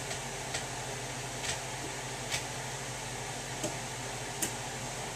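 A cardboard shipping box being worked open by hand: about five scattered sharp clicks and snaps over a steady hiss of room noise.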